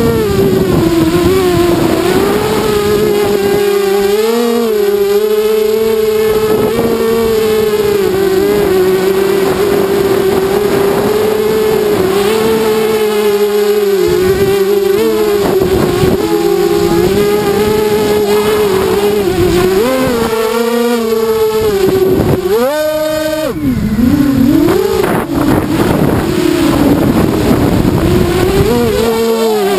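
ZMR 250 quadcopter's brushless motors (DYS BE1806 2300KV) spinning Gemfan 5040 props in flight: a loud, steady whine whose pitch wavers up and down with the throttle. About 23 seconds in the pitch shoots up briefly, then drops away and swings back.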